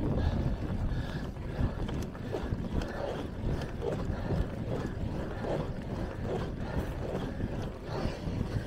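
Wind buffeting the microphone of a handlebar-mounted camera on a road bike, over the rumble of the tyres rolling on asphalt.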